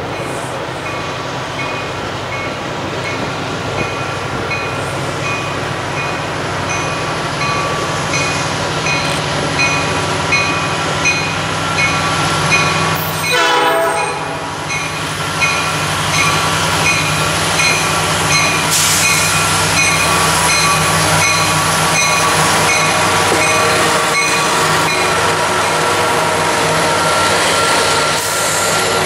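A diesel freight locomotive approaches and passes close by, its engine growing steadily louder, with a train horn sounding over it. A bell rings about twice a second through most of it and stops a few seconds before the end.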